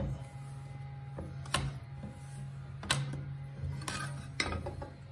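A metal mounting plate clinking against a portable band saw's housing as it is worked around the blade: about five sharp metallic clicks, roughly a second apart, over a steady low hum.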